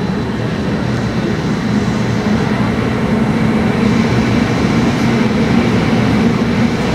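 Hurricane wind blowing hard: a steady, dense rushing noise heaviest in the low end, growing slightly louder toward the end.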